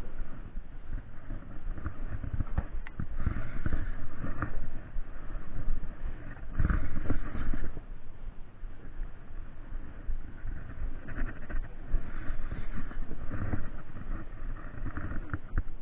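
Water sloshing against the hull of a small boat in irregular surges, with a steady low rumble of wind on the microphone.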